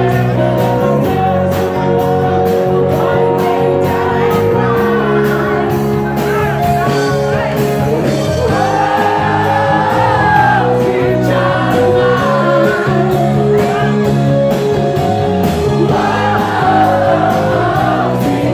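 Loud music with a steady beat and a singing voice, with shouts from a crowd.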